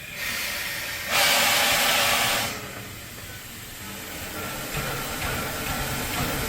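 Steam locomotive venting steam: a hiss that swells about a second in into a loud blast lasting roughly a second and a half, then drops back to a low background rumble.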